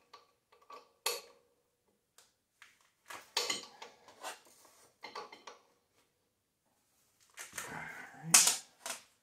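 Metal hand tools clicking and clinking as a ratchet and socket tighten engine mounting bolts, in scattered bursts with one sharp metal clank near the end.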